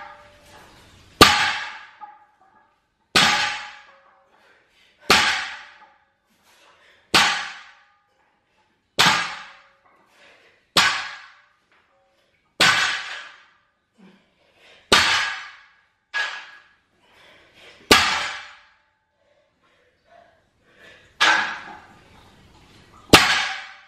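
A 200 lb barbell loaded with iron plates is set down on a rubber gym floor at each deadlift rep. About a dozen sharp metallic clanks come one every two seconds or so, each ringing briefly.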